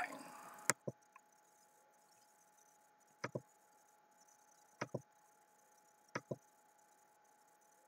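Several short, soft clicks or knocks, some in quick pairs, spaced a second or two apart over quiet room tone with a faint steady hum.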